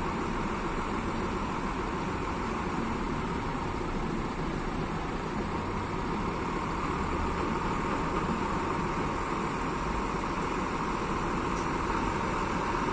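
Diesel engine of an intercity coach bus running at low speed as it pulls out and drives slowly closer, getting gradually louder.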